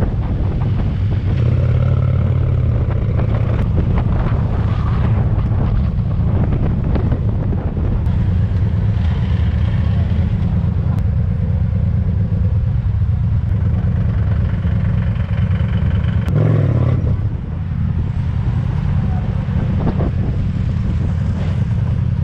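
Motorcycle engine running at low road speed, heard from on the bike itself, a steady low drone with a brief change in note about sixteen seconds in.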